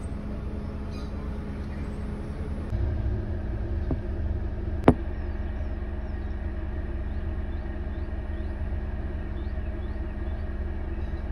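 Car running, heard from inside the cabin: a steady low rumble that grows a little louder about three seconds in. A single sharp click about five seconds in.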